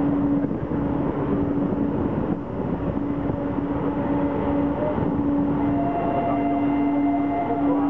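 A passenger train rolling slowly into a station, heard from an open carriage window: a steady running rumble with a low hum that breaks off every second or so. A fainter higher tone joins about six seconds in.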